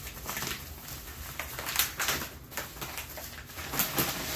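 Rustling and handling of a shipping package being opened, with a few sharp clicks and knocks, the loudest nearly two seconds in and again near the end.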